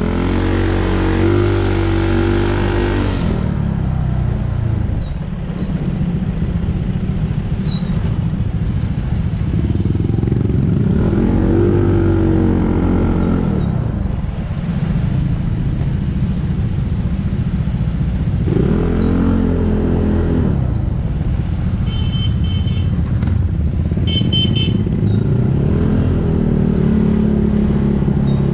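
A motor vehicle's engine revving up and easing off in about four surges, over a constant low rumble.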